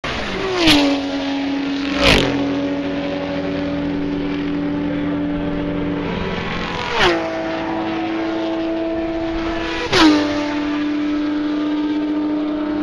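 Race cars passing close by one at a time, four in all, each engine note dropping sharply in pitch as it goes past, with a steady engine drone carrying on between the passes.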